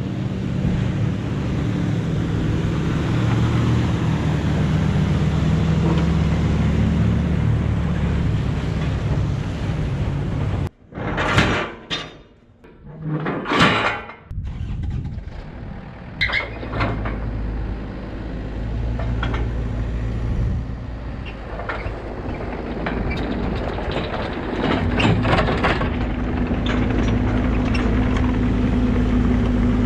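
A small diesel excavator engine runs steadily. It then gives way to a few loud metal clanks of chain and load binder as a Kubota KX121-3 mini excavator is freed on its trailer. Afterwards the KX121-3's diesel engine runs at idle, with scattered clicks and knocks.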